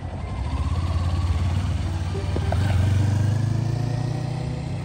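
Kawasaki Ninja sport bike pulling away from a stop and accelerating off, its engine note rising and loudest about three seconds in, then easing as it moves away.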